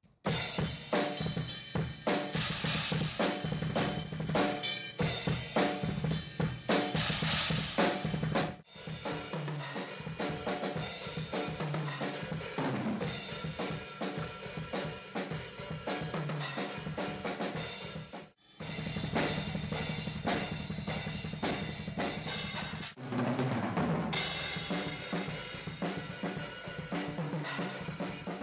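Heavy metal drumming on a close-miked acoustic drum kit: fast, dense kick, snare, hi-hat and cymbal hits. The playing stops briefly twice, about a third and two thirds of the way through.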